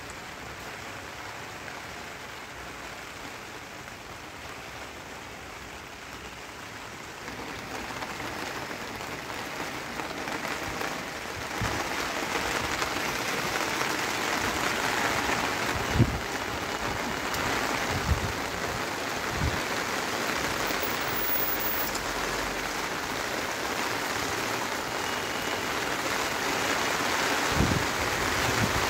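Steady rain falling on a rooftop garden, getting louder about a quarter of the way through, with a few short low thumps on the microphone.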